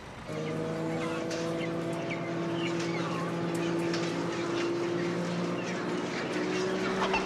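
A steady machine drone, one low humming pitch with overtones that sets in just after the start and rises slightly near the end, under faint scattered clucks and peeps from a flock of broiler chickens.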